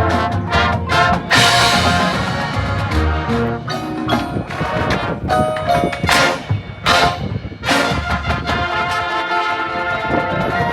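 High school marching band playing, brass carrying the music over percussion. A broad crash lands about a second in, and several sharp hits punctuate the passage between about six and eight seconds.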